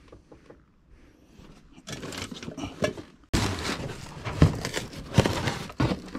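Cardboard boxes being handled and shifted, with cardboard scraping and rustling. It turns suddenly louder about halfway through, with a few dull thumps.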